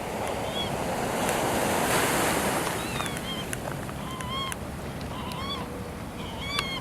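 Pacific Ocean surf rushing and breaking, swelling louder about two seconds in and then easing. Through the second half come several short, cat-like mewing calls of gulls, each rising and falling in pitch.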